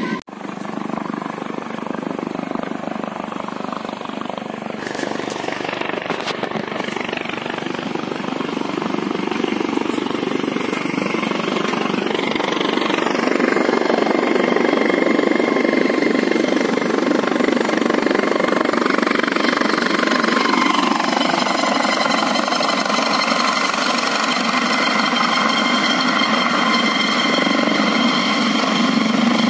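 Helicopter rotor chop and turbine whine, growing louder over the first half as the helicopter comes in low to land, then holding steady and loud. About two-thirds of the way through, one tone drops in pitch.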